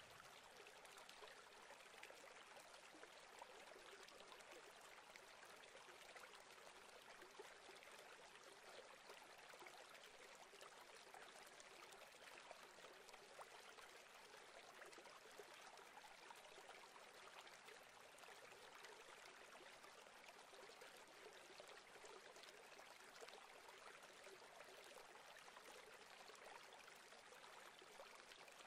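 Near silence: a faint, steady trickle of water dotted with tiny ticks.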